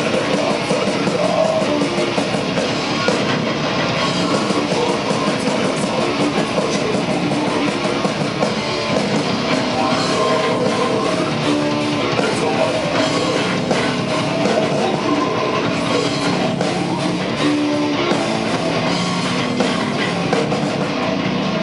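A rock band playing live at full volume: distorted electric guitars over drums, with frequent sharp drum hits and no break.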